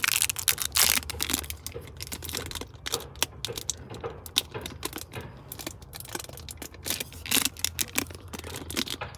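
Clear plastic shrink wrap being peeled and torn off a new spin-on oil filter: a busy run of irregular crinkles and crackles.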